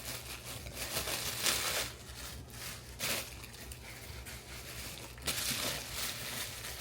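Plastic packaging crinkling and rustling in irregular bursts as clothing is handled and unpacked.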